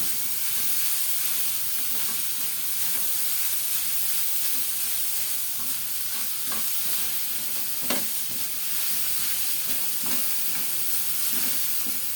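Ground pork frying in hot oil with garlic and onions, a steady sizzle, while a spatula stirs and scrapes it around the pan, with a sharper clack of the utensil about eight seconds in.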